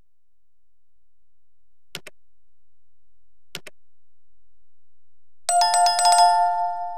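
Two short mouse-click sound effects, about two and three and a half seconds in. Near the end comes a quickly struck notification-bell chime that rings on and fades, the sound of a subscribe-button animation.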